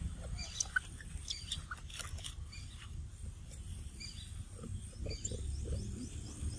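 Scattered short, high chirps and squeaks from animals, over a low steady rumble.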